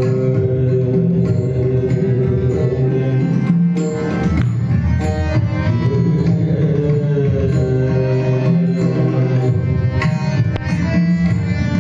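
Indian devotional bhajan music: mridang drum strokes over sustained held melody notes.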